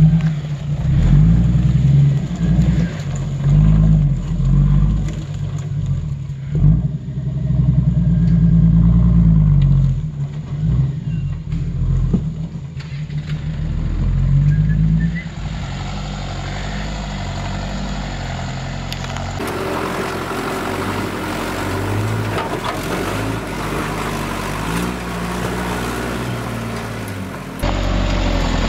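Toyota Land Cruiser 80 Series engine working hard as the 4x4 crawls up rock ledges, revving up and down over and over as the driver feeds throttle over each step. About halfway through the engine note settles into a steadier drone.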